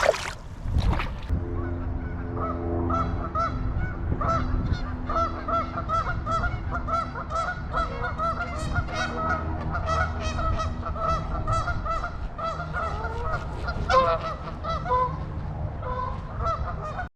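A flock of geese honking, many short calls overlapping several times a second, one louder call about fourteen seconds in, over a steady low rumble. Two sharp knocks come right at the start.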